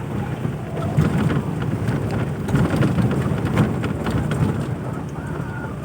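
Toyota Land Cruiser Prado driving over rough ground: a steady low rumble from the vehicle broken by many crackles and knocks, heaviest in the middle.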